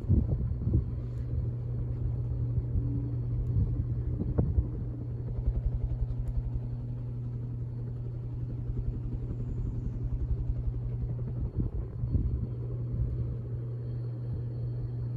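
Hunter ceiling fan with its spinner motor running on high speed: a steady motor hum, with irregular low rumbling of moving air buffeting the microphone that starts abruptly at the beginning, and a couple of faint knocks.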